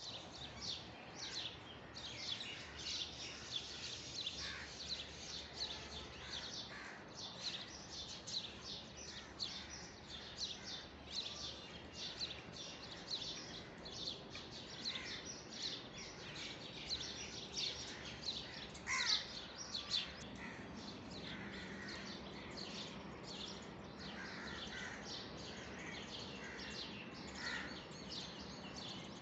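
Many small birds chirping and trilling together over a steady background hiss, a dense run of short high chirps, with one louder falling call about two-thirds of the way through.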